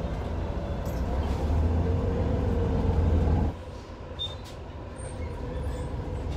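Inside a moving city bus: a steady low rumble of the engine and road. It turns quieter a little past halfway.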